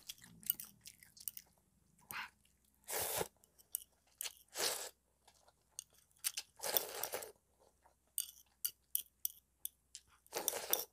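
Close-up eating sounds: noodles slurped in several drawn-out slurps, with chewing and short crunchy clicks between them.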